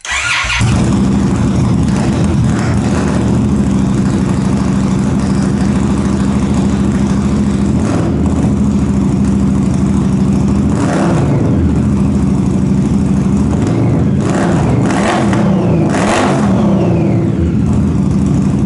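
Indian Scout Bobber's V-twin engine breathing through short aftermarket slip-on mufflers, firing up and idling loud and lumpy. It gets a few quick throttle blips, with a run of three close together near the end.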